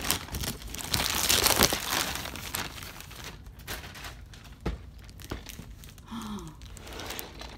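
Plastic packaging crinkling and tearing as a parcel is opened by hand, loudest in the first three seconds, then lighter rustles with a few sharp clicks.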